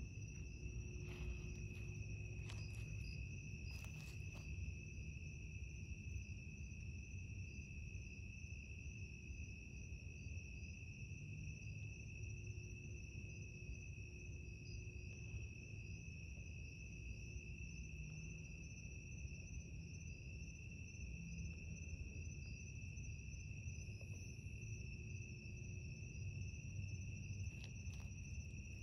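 Night insects trilling steadily at two high, unchanging pitches, over a faint low rumble. A few faint clicks come in the first few seconds and again near the end.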